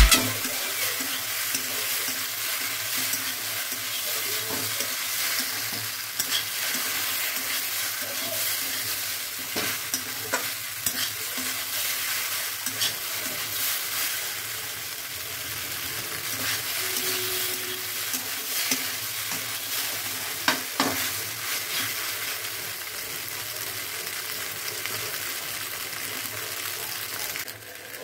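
Pasta frying and sizzling in a hot metal wok as a metal spatula stirs and tosses it, with scattered scrapes and clinks of the spatula against the pan.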